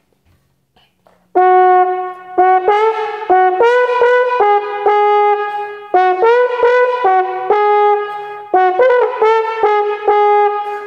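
Trombone playing a tongued three-note figure over and over: F sharp up a fourth to B, then down to G sharp. It starts about a second in. The notes are high in the range, part of a range exercise pitched above the notes the part needs.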